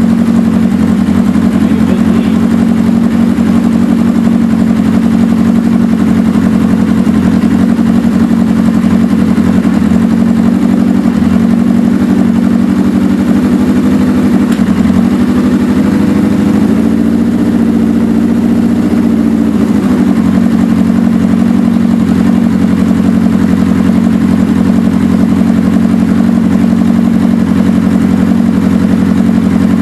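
Suzuki GS550 air-cooled inline-four motorcycle engine idling steadily while its carburettors are tuned at idle, with cylinder four's mixture too lean. The idle rises a little for several seconds around the middle, then settles back.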